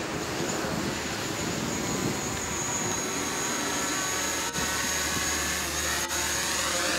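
DJI Mavic Pro quadcopter's propellers buzzing with a steady high whine as it comes down and hovers low over the ground to land.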